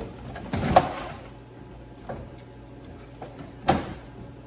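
Plastic interior door panel being lifted and popped off a pickup's front door: a cluster of loud clacks about a second in, a few light taps, then another sharp clack near the end.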